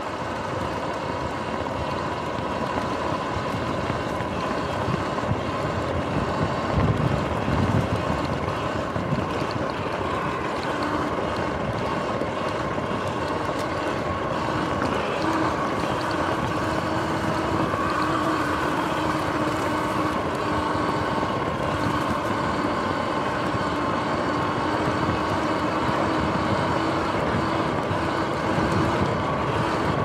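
Electric dirt bike riding along a dirt trail: a steady electric motor whine that drifts slightly in pitch with speed, over tyre rumble on the track and wind on the microphone. The rumble grows heavier for a moment about seven seconds in.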